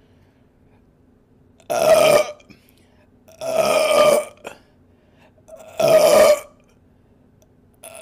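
A woman belching loudly three times, each burp a separate open-mouthed belch under a second long, with short pauses between them; the middle one is the longest.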